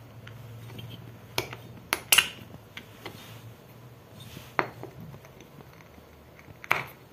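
Sharp metallic clinks and knocks as a washing machine's round metal disc and its nut are handled and fitted together, about seven separate clicks, the loudest a quick pair about two seconds in.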